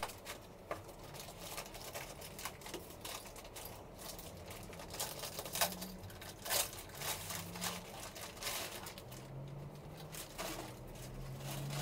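Clear plastic packaging bag crinkling and rustling as it is handled and lifted off, with many small scattered clicks.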